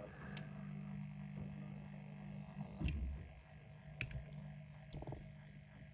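A few light clicks and taps as a small die-cast model car is lifted off a plastic display turntable by hand, over a low steady hum.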